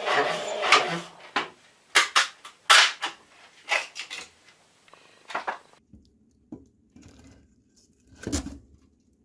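Irregular clattering knocks and clinks of hard objects being handled: a dense clatter at first, then about seven separate sharp knocks that grow sparser toward the end.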